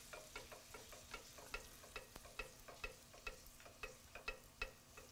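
Faint cream-and-butter sauce simmering in a small pan, its bubbles popping irregularly, a few small pops a second, over a low hiss.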